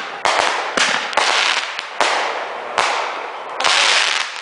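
Fireworks going off in a rapid, irregular run of about five or six sharp bangs, each trailing off in a crackling hiss.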